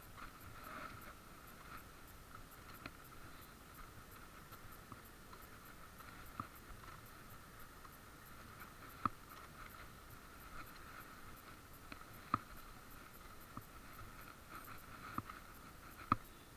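Faint riding noise of a Zappy electric scooter rolling along a gravel path: a steady thin whine with a few sharp clicks and knocks scattered through it.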